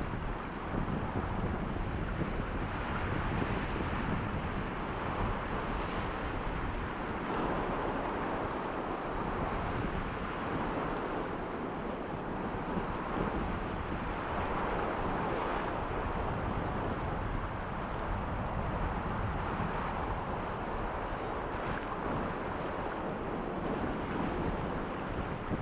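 Strong wind buffeting the microphone over surf washing against a rocky shore: a steady rushing noise that swells and eases every few seconds.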